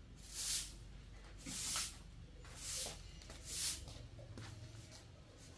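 Straw broom sweeping a concrete floor: four brisk swishes about a second apart, and the strokes stop about two-thirds of the way through.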